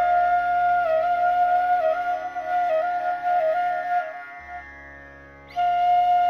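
Background instrumental music: a flute melody with quick ornamented turns between notes over a steady drone. It fades out about four and a half seconds in, and a new phrase starts about a second later.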